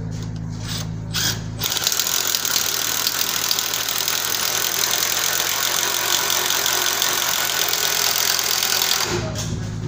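Cordless power drill running steadily with a long bit boring into a timber post. It starts about two seconds in and stops about a second before the end, after a low steady hum.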